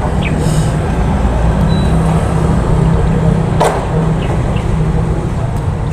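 A motor engine running steadily with a loud low rumble, with one sharp knock a little past halfway.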